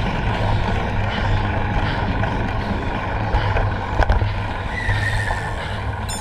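Wind rumbling and buffeting on a bike-mounted action camera's microphone, with a single sharp click about four seconds in.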